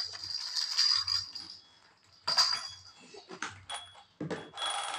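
Baby toys being handled on a play mat: hissing squeaks from a squeezed rubber chick toy, with a few light clicks of plastic toys knocking together.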